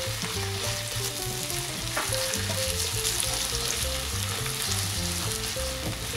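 Harissa frying in hot olive oil in a nonstick frying pan, sizzling steadily while a wooden spatula stirs and spreads it across the pan.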